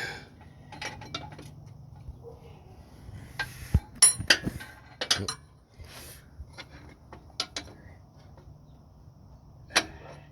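Metal hand tools clinking and tapping against engine parts while a car's drive belt and alternator are being tightened: scattered sharp clicks, a few ringing clinks about four to five seconds in and again near the end, over a faint low hum.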